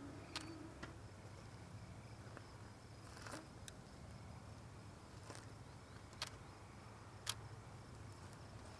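Faint summer-night insects giving a steady high trill over a low hum, with several sharp clicks scattered through.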